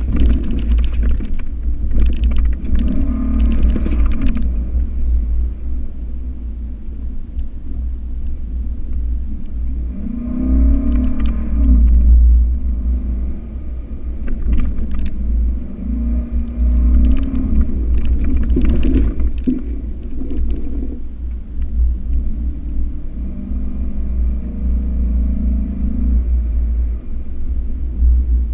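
Ford F-150 Raptor driving on a dirt road, heard from inside the cab: a constant low rumble with the engine note rising and falling several times. Spells of rattling and clatter come and go, near the start, about ten seconds in and again a little later.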